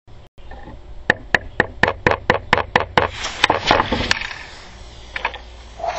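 Steel claw hammer striking a CO2 cartridge on a deck again and again, about four sharp blows a second with a short metallic ring, some dozen strikes in all, trying to puncture the cartridge.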